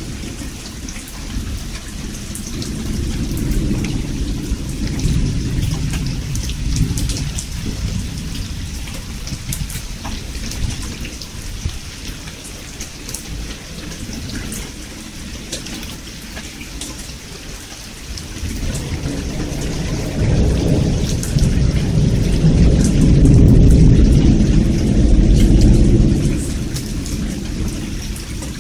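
Thunderstorm: steady heavy rain with a dense patter of drops, under low thunder rumbles. A lighter rumble comes early, and a longer, louder one starts about two-thirds of the way in, builds, and eases off just before the end.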